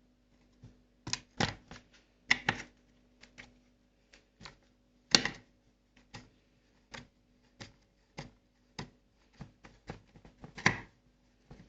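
Screwdriver undoing a screw on a washing machine's timer switch housing: a run of light clicks and taps, about one every half second in the second half, with louder knocks about a second in, around five seconds and near the end.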